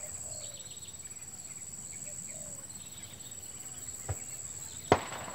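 Steady high drone of insects with a few faint bird calls, broken by a dull bang about four seconds in and a much louder sharp bang near the end: the noise of farmers scaring wild elephants off the plantations.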